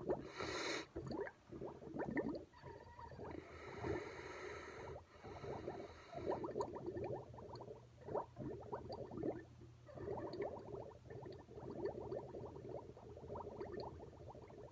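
Air blown through a drinking straw into a glass of milk, bubbling and gurgling in quick, continuous pops. There is a brief hiss near the start, and a stretch of stronger, airier bubbling about four to six seconds in.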